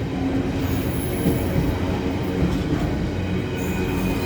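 A train rolling past at close range: a steady rumble and clatter of wheels on the rails.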